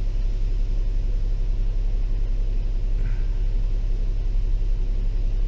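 Car engine idling with a steady low rumble, heard from inside the stationary car's cabin.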